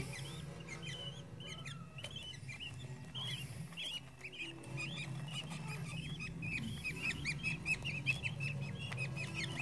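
Budgerigar chicks chirping: many short, high chirps that come faster and thicker from about halfway through, over a steady low hum.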